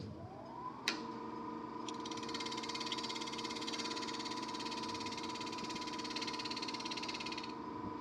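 Wood lathe motor spinning up with a rising whine over the first second, then running steadily. From about two seconds in, a turning tool cuts into the spinning log with a steady hiss that stops shortly before the end.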